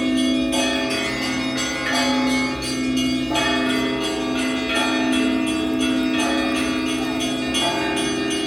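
Russian Orthodox church bells ringing from a belfry: several bells of different pitch are struck in a quick, continuous pattern, several strikes a second, over the long ring of the lower bells.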